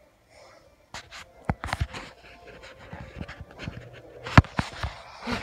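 A dog panting close to the microphone, in quick, uneven breaths that start about a second in, with one sharp tap a little past four seconds in.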